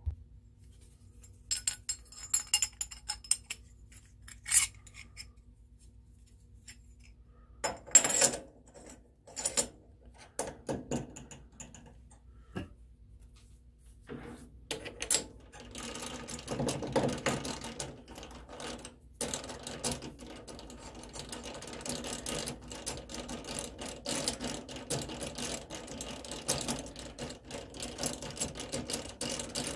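Small metal parts and tools clinking in separate knocks while a collet chuck is set up on a metal lathe, turning into a busier, continuous mechanical clatter from about halfway through.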